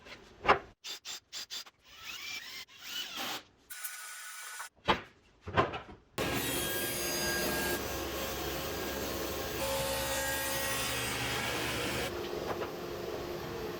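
A few sharp knocks and clicks of wood being handled. Then, about six seconds in, a SawStop 1.75 HP cabinet saw with a 10-inch 40-tooth carbide blade is heard running steadily and cutting wood, its tone shifting a few times as the cut goes on.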